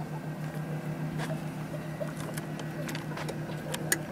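A steady low hum with scattered light clicks, a few sharper ones near the end.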